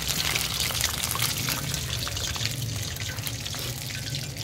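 Chicken drumsticks deep-frying in hot oil in a karahi: a steady, dense crackling sizzle that eases slightly near the end.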